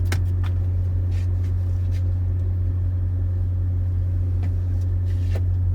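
Steady low mechanical hum, like an idling engine or running motor, unchanging throughout, with a few faint clicks.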